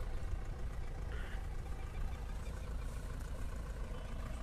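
Mahindra Thar CRDe's diesel engine running steadily at low revs as the jeep creeps backwards in four-wheel drive.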